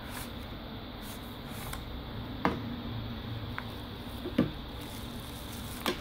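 Hands handling a small cardboard knife box and its packed contents: a few short, sharp clicks and taps of the cardboard over a low steady background hiss, the loudest about two and a half and four and a half seconds in.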